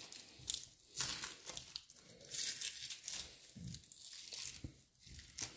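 Wrapping crinkling and tearing as it is peeled off a rifle packed in cosmoline: a string of short, irregular crackling rustles.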